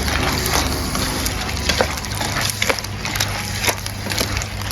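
Shellfish in their shells being stir-fried in a pan: irregular clicks and clacks of shells and spatula knocking against the pan, over a steady sizzle.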